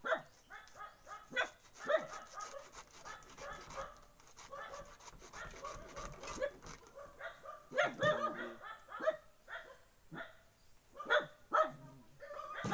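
A dog barking and yipping repeatedly, in short calls.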